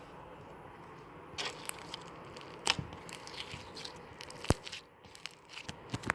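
Clear slime mixed with frog-egg beads being worked, giving an irregular run of crackles and clicks that starts about a second and a half in, with one sharp click about two-thirds of the way through.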